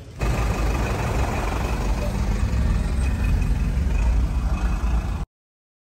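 Steady rumble of motor vehicles, with indistinct voices mixed in; it cuts off suddenly about five seconds in.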